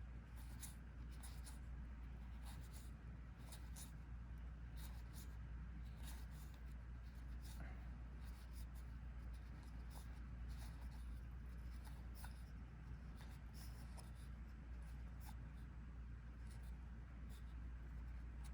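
Trading cards being flipped and slid one after another, with faint irregular clicks and rustles of card stock, over a low steady hum.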